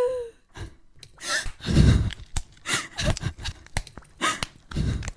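Radio-drama sound effects of a captive straining against a metal chain: repeated clanks and knocks with short gasps and whimpering cries, and two heavier thuds, about two seconds in and near the end.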